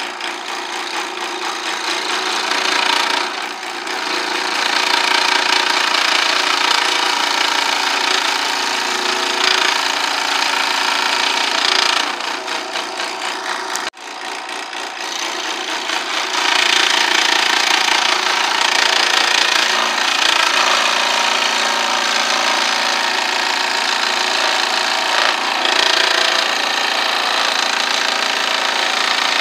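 Benchtop scroll saw running, its reciprocating blade cutting letters out of a wooden board. The saw noise is steady, with a sudden brief drop about halfway through.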